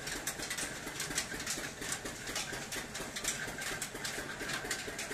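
Sugarcane juice heating in a wide iron pan over a clay furnace for jaggery, with constant irregular crackling and popping as the juice comes toward the boil.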